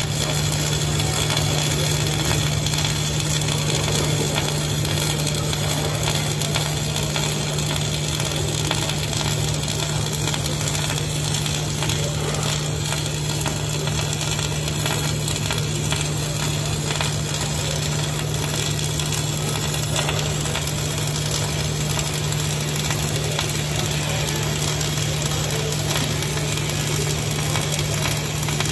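Wire-feed (MIG) welding arc: a steady, continuous crackle and sizzle as the bead is laid, over a constant low hum.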